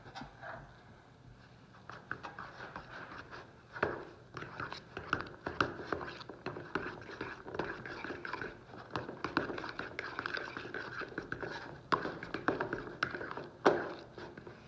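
A fork stirring shaving cream into glue in a bowl, giving irregular scraping and clicking that begins about two seconds in.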